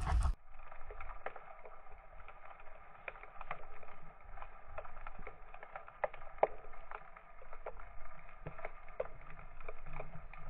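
Underwater sound, muffled and dull-topped, full of irregular small clicks and crackles over a faint steady hum.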